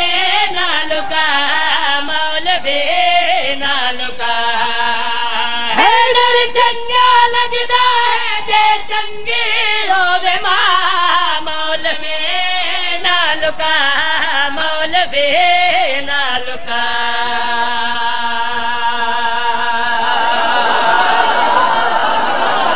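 A man's voice chanting a Punjabi devotional qasida in long, bending held notes, amplified through a microphone. Near the end the chant gives way to the noise of the crowd's voices.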